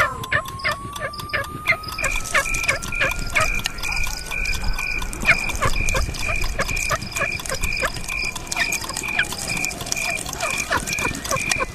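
A mixed sound-effects collage: a fast run of short grunt-like strokes, joined about two seconds in by a high electronic beep repeating about three times a second, with a thin whistle-like tone slowly rising and then falling.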